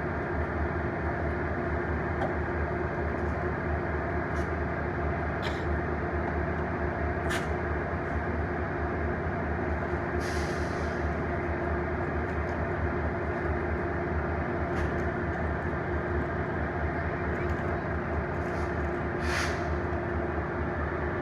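Metrolink commuter train's diesel locomotive running steadily while the train stands at the station, a constant low drone. Short hisses break in briefly about halfway through and again near the end.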